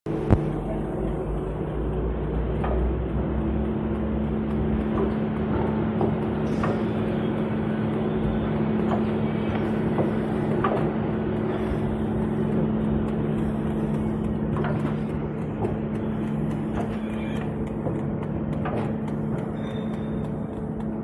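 Disposable plastic cup counting and flow-wrap packing machine running: a steady motor hum with irregular clicks and knocks from its moving parts.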